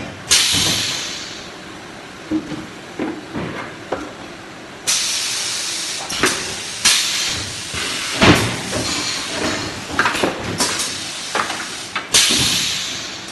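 Cardboard-tube making machinery at work: sharp hissing bursts of air that fade over about a second, one near the start and one near the end, and a longer hiss in the middle. Knocks and clatter run through it, the loudest a little past halfway.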